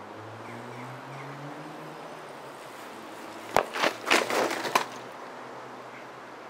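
A bicycle and its rider crashing onto tarmac: a sharp knock about three and a half seconds in, then about a second of clattering and scraping as the bike goes down on the road. A steady low background hum runs underneath.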